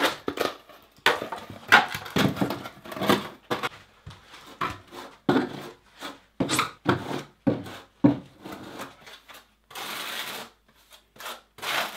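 Utility knife cutting and scraping Wedi foam building panel, with irregular crunching and rubbing strokes as the foam board is trimmed and handled. A longer scraping stroke comes about ten seconds in.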